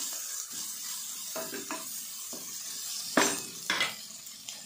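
Wooden spatula stirring and scraping an onion-tomato seasoning frying in an aluminium pressure cooker, over a steady light sizzle. Two louder knocks of the spatula against the pot come a little past three seconds in.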